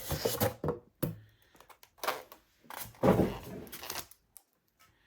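Unboxing handling noise as a microphone is lifted out of its packaging: scattered rustles and knocks of cardboard and packing. They come in short separate bursts with quiet gaps, the loudest about three seconds in.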